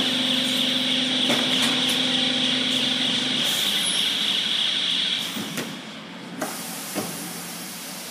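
High-frequency canvas welding machine running: a steady hum that stops about three and a half seconds in, under a high-pitched hiss that cuts off about five seconds in, followed by a couple of clicks.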